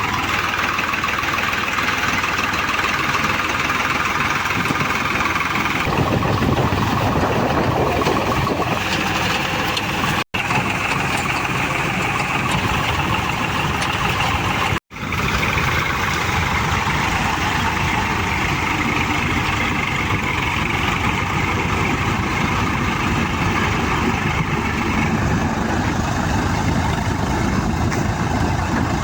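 An engine running steadily, cutting out for an instant twice partway through.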